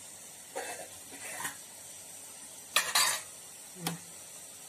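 Metal ladle scraping against the side of a metal cooking pot as cooked biryani rice is stirred and fluffed. There are four short scrapes, the loudest about three seconds in.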